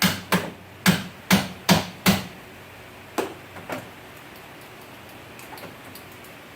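A run of six sharp knocks about half a second apart, as if struck against the car door, then two weaker knocks and a few small clicks: an attempt to shift a window that is jammed by a failed regulator.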